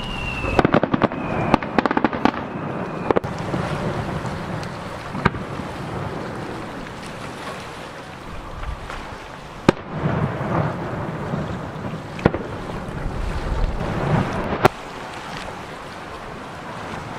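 Aerial firework shells bursting: a quick string of sharp bangs in the first few seconds, then single bangs several seconds apart, with a low rumble and crackle between them. A thin whistle slides down in pitch during the opening bangs.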